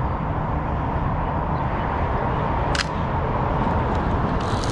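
A 35mm film camera's shutter clicks once, sharply, about three seconds in, over a steady low background noise.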